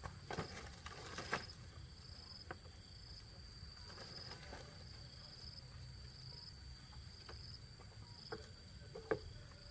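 Insects trilling steadily at a high pitch, pulsing about once a second, with a few faint clicks and knocks of handling now and then.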